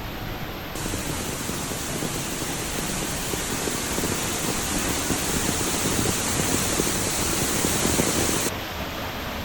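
Steady rushing water of a waterfall. A brighter, louder hiss cuts in abruptly about a second in and cuts out abruptly near the end.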